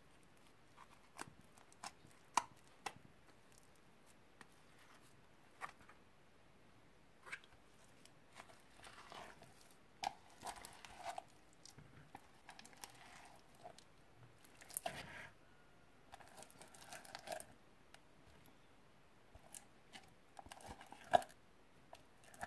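Sticky slime squeezed and pulled by hand out of a plastic tub: scattered wet clicks and pops with short crackling, tearing stretches as it peels and stretches away from the plastic, with a sharp snap about 2 s in and another near the end.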